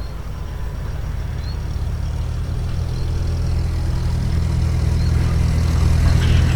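A motor vehicle's engine running steadily with a deep, low rumble that grows gradually louder.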